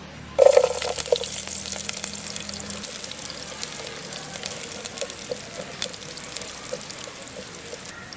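Heavy rain, a dense patter of drops hitting a surface, starting abruptly about half a second in. A low hum runs underneath for the first three seconds.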